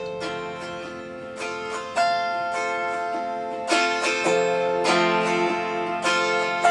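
Autoharp strummed in an instrumental break: a sweep across the strings about once a second, each chord ringing on, with the chord changing several times and the strums getting louder about two seconds in.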